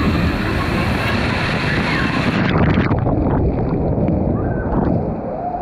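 A waterfall pouring and splashing onto the pool surface close by, a loud steady rush of falling water. About two and a half seconds in, the sound turns duller.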